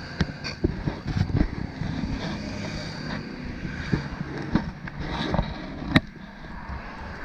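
Road traffic on a wide street: a steady low rumble, with scattered sharp knocks and clicks, the sharpest about six seconds in.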